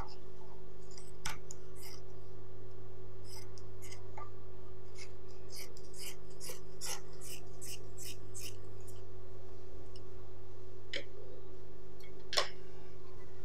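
Scissors snipping through black dress fabric, a run of quick cuts about three a second in the middle, with a few single snips before and after, over a steady low hum.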